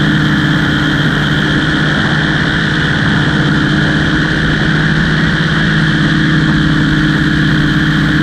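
Aircraft engine running steadily at a constant pitch, loud and close throughout.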